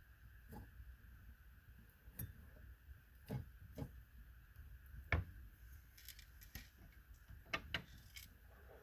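Faint, scattered clicks and light knocks, like small contacts on a hard dish. Most fall between about three and eight seconds in. The sharpest comes about five seconds in, with a quick pair near the end.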